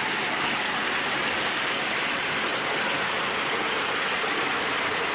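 Masses of glass marbles clattering against each other and the wooden tracks of a marble machine: a dense, steady rattle.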